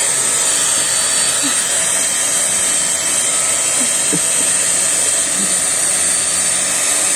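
A small electric air blower running steadily: an even rush of air with a bright hiss, at a constant level.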